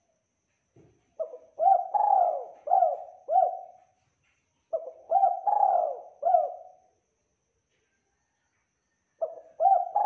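Spotted dove cooing: two phrases of four or five short, low coos each, and a third phrase starting near the end.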